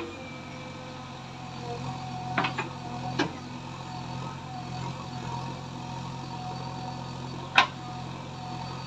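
JCB 3DX backhoe loader's diesel engine running steadily as the backhoe arm digs and lifts a bucket of soil, with a few sharp knocks from the working arm and bucket, the loudest near the end.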